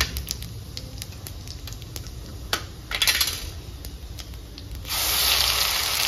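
A steel spatula clicks and scrapes in a steel kadai of hot oil. About five seconds in, a loud sizzle starts suddenly as ground onion-chilli-ginger-garlic masala paste goes into the hot oil, and it carries on frying steadily.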